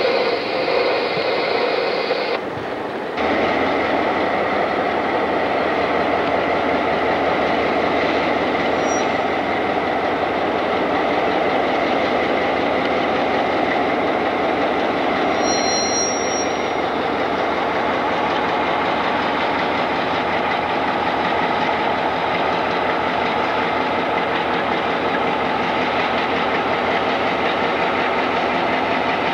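Mohawk, Adirondack & Northern diesel locomotive working with a train of tank cars, its engine a loud, steady drone. A brief high squeal comes about halfway through.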